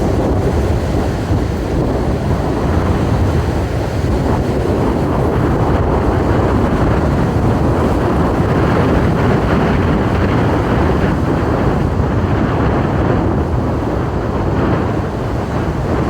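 Wind buffeting the microphone in a steady low rumble, with waves breaking on the shore.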